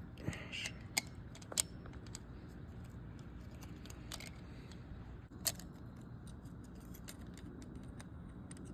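Small metallic clicks and taps as an ARP head-stud washer is fished down into its stud hole in the cylinder head with a screwdriver: a handful of sharp, separate clicks spread over a few seconds.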